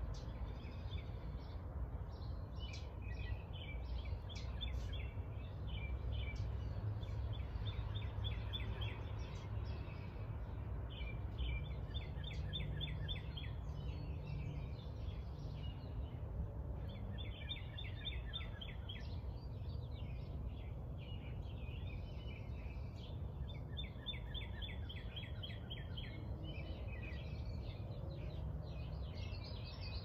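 Small songbirds in a backyard tree, singing short, rapid trilled phrases that come again every few seconds, over a steady low rumble of suburban background noise.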